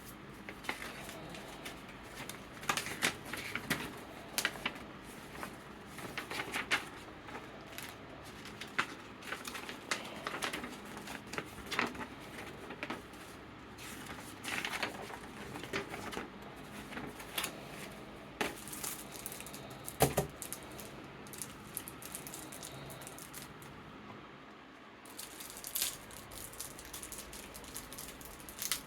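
Cards and plastic card sleeves being handled: irregular crisp rustles and small clicks, with one louder tap about twenty seconds in, over the steady hum of an electric fan.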